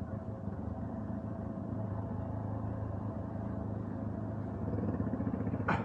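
Motorcycle engine running steadily while riding, getting a little louder about three-quarters of the way through. Just before the end comes a single short, sharp high sound.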